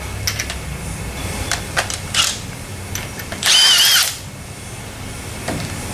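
A power tool runs in one short, high-pitched burst of under a second, about three and a half seconds in, among a few light clanks of tools.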